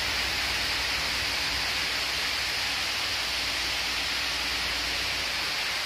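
Steady, even hiss with a faint low hum beneath it; nothing starts, stops or changes.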